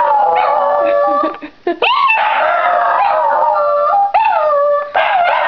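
Border terriers howling together, several long pitched howls overlapping and gliding up and down, with a short break about a second and a half in before they start again.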